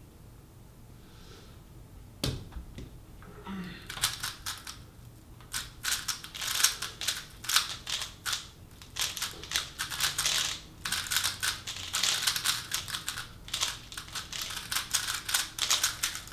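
3x3 speedcubes being turned fast during a speedsolve, including a WeiLong GTS: a single sharp click about two seconds in, then from about four seconds a dense, rapid clatter of plastic layer turns.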